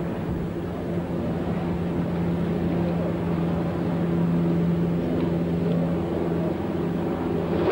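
Steady low hum with a few layered pitches above it. Right at the end, the sharp click of a sand wedge striking a golf ball.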